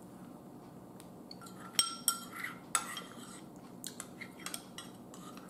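Metal spoon clinking and scraping against a bowl of chili: a few sharp, ringing clinks about two seconds in, then lighter taps as the spoon scoops.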